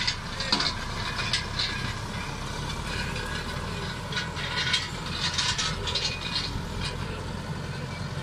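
Tractor engine running steadily under load, with bouts of metallic rattling and clanking from the towed chisel plough and roller: in the first two seconds and again from about four to six and a half seconds in.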